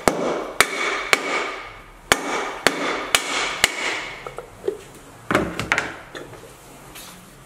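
A red plastic-faced mallet striking a seal driver held against a Subaru EJ22 engine block's crankshaft end, driving in the rear crankshaft oil seal: three sharp, ringing taps, a short pause, then four more, about two a second. A couple of lighter knocks about five seconds in as the tools are set down.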